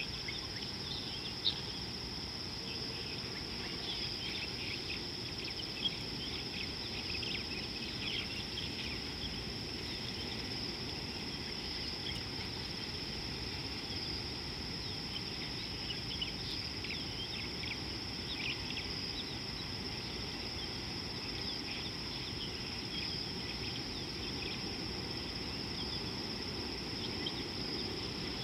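Steady high insect drone with scattered short chirps over low, steady background noise.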